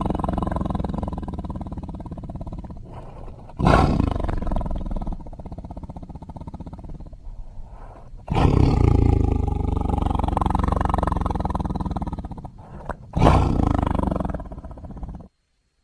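Cartoon sea rhinoceros sound effect: a run of loud roars, one fading away at the start and three more that each burst in suddenly and die down over a few seconds. The last cuts off abruptly near the end.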